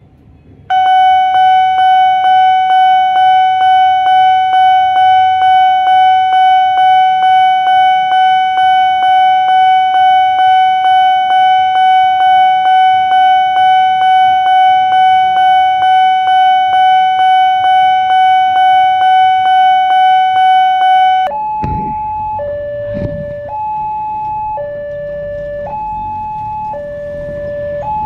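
Railway level-crossing warning bell: one electronic tone struck over and over, about twice a second, for some twenty seconds. Then another crossing's alarm, two electronic tones alternating high and low, with a couple of low thumps.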